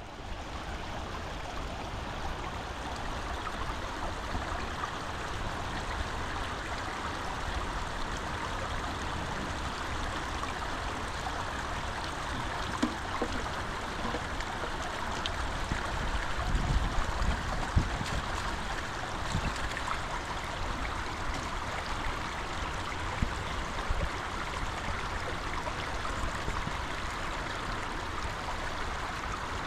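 Running water flowing steadily, a stream-like rush, with a few faint low thumps about halfway through.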